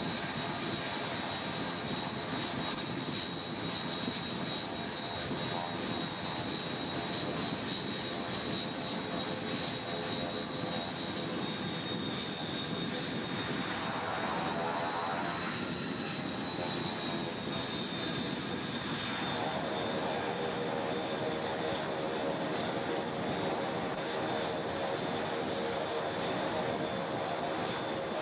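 Breguet Alizé's Rolls-Royce Dart turboprop running on the carrier catapult: a steady engine noise with a high whine, its lower engine note shifting about halfway through.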